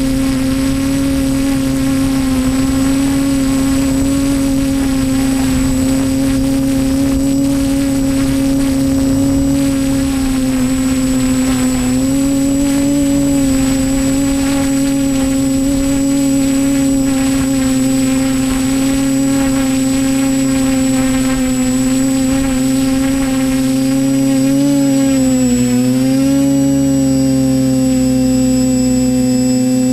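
TBS Discovery Pro quadcopter's four electric motors and propellers running, a loud steady buzzing hum heard from the camera on the airframe. The pitch wavers about 12 seconds in, then dips and rises again about 25 seconds in as the motor speed changes.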